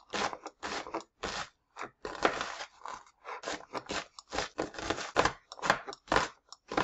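Chef's knife chopping a peeled onion on a plastic cutting board: quick, irregular crunching strokes, about three a second, some drawn out into scrapes along the board.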